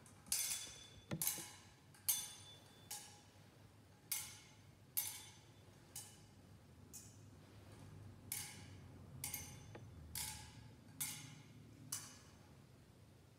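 A metal thurible being swung, its chains and lid clinking against the bowl at each swing: about a dozen bright, ringing clinks roughly a second apart, some in pairs, stopping shortly before the end.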